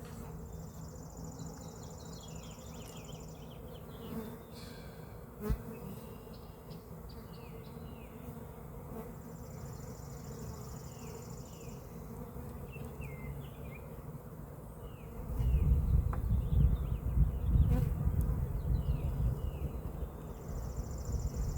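Carniolan honeybees from a three-pound package buzzing steadily around the hive. About fifteen seconds in, a loud low rumble comes in over the buzzing.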